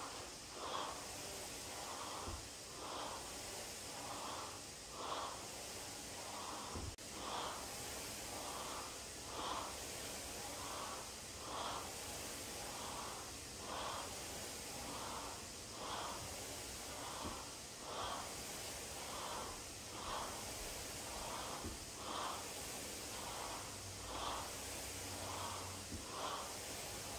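A woman breathing hard from exertion during repeated dumbbell lifts, in short rhythmic puffs about once a second over a steady background hiss. A few dull thuds come in between.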